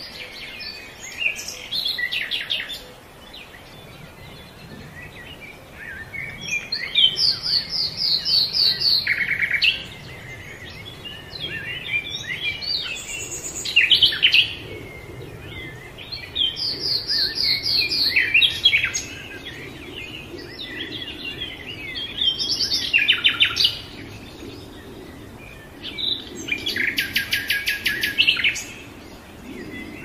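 Songbirds singing in a woodland dawn-chorus manner: phrases of rapid trills and chirps that come again every few seconds. Under them runs a faint low rush of flowing water.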